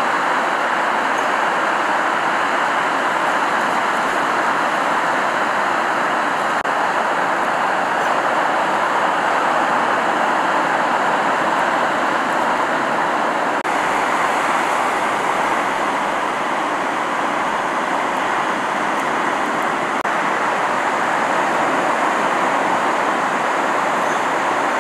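Breaking surf: a steady, even rush of waves and whitewater, with no single crash standing out.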